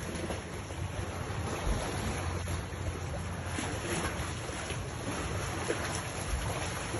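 Wind rushing on the microphone over small waves lapping at the dock: a steady, rumbling noise with no engine tone.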